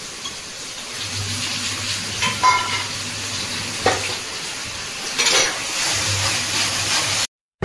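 Onion paste sizzling as it is added to hot oil and tomato masala in a kadai and stirred with a wooden spatula, with a few sharp clinks of the spatula. The sound stops abruptly near the end.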